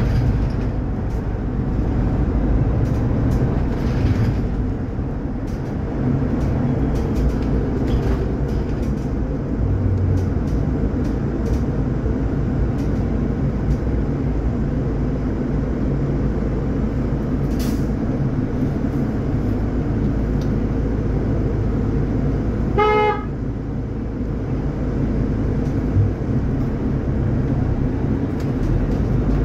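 Inside a Solaris Urbino 12 hybrid city bus under way: a steady low rumble of drivetrain and road noise. About three quarters of the way through comes one short horn toot, and a little later a single brief knock.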